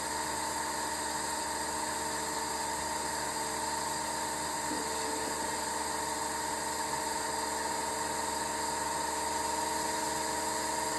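Desktop model turbofan jet engine running steadily at speed, lit and at more than double its air-start speed: a steady whine of several fixed tones over a rushing hiss.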